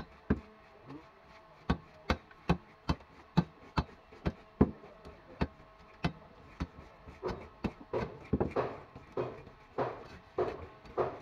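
Tilapia being worked against a large fixed bonti blade: a run of sharp knocks, about two to three a second, that give way about two-thirds of the way in to rhythmic rasping scrapes at a similar pace as the fish is drawn across the blade.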